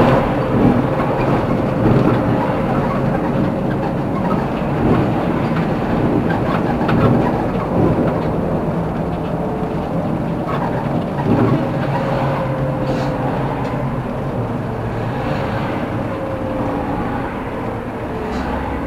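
Steady running rumble of a road vehicle in motion, heard from inside, with a faint whine that drifts slightly in pitch and a few light knocks.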